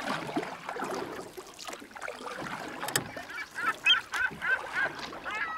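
A steady rushing wash with a run of short bird calls, about three a second, in the second half.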